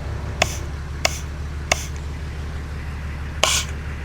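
Land Cruiser front differential air locker under bench test, with a steady low hum, sharp clicks about every two-thirds of a second, and a short burst of hiss near the end. Held close to the seals, it sounds like air might still be escaping, perhaps past the plunger.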